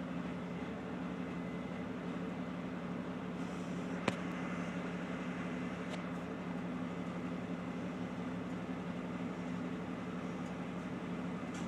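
John Deere 450J crawler dozer's diesel engine running steadily, a constant even hum with no change in pitch. A single sharp click about four seconds in.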